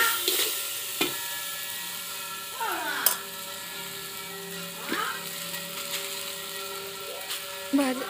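A metal spatula stirs and scrapes vegetables around a large aluminium kadai, over a steady sizzle of frying. There are a couple of sharp knocks of the spatula on the pan and sliding scrapes along the metal.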